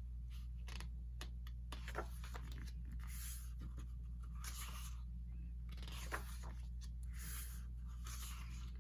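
Paper rustling and sliding as the pages of a small album photo book are turned and handled, in soft irregular rustles with a couple of light ticks, over a steady low hum.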